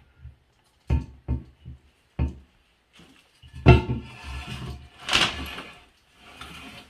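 Hard knocks and clunks of porcelain toilet parts and fittings being handled during toilet assembly: a few sharp knocks, then longer scraping and rattling clatters.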